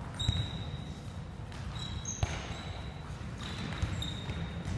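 Indoor soccer ball being kicked and bouncing on a hard gym floor: a few sharp thuds, the loudest about two seconds in, with sneakers squeaking on the polished floor several times. All of it echoes in a large gymnasium.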